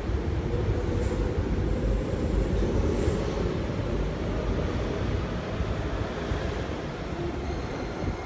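MTR Ma On Shan Line SP1950 electric train pulling out of the platform and running past: a steady rumble of wheels and traction motors, with faint high whines in the first few seconds.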